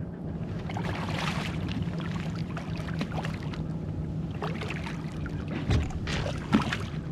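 Water splashing as a hooked striped bass thrashes at the surface beside a kayak: one burst about a second in and several more in the second half, over a steady low hum.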